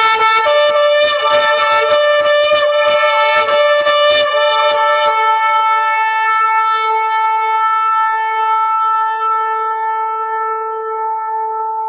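Shofar sounding one long blast: the note pulses rapidly for about the first five seconds, then is held steady and slowly fades.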